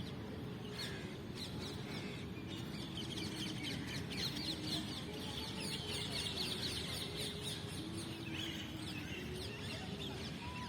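Many birds chirping: a dense chatter of short high calls, busiest in the middle, over a steady low background rumble.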